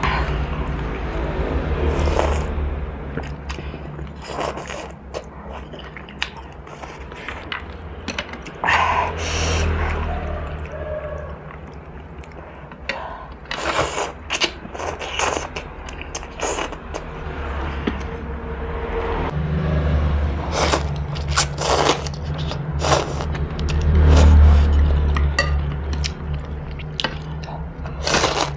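Close-up eating sounds: a metal spoon scraping and clinking against a ceramic bowl of noodle soup, with noodles being slurped and chewed in repeated short bursts, over a steady low hum.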